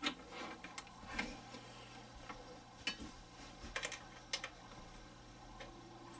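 Irregular light clicks and taps, about a dozen, over a faint steady low hum.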